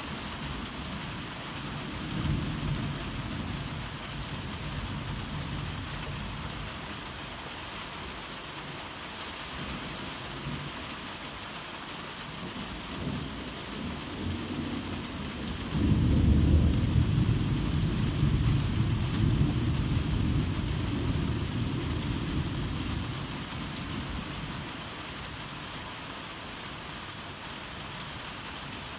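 Heavy rain falling steadily, with rolling thunder: a short rumble after a couple of seconds, softer low rumbling near the middle, then a sudden loud peal just past halfway that rolls on for about eight seconds before fading back into the rain.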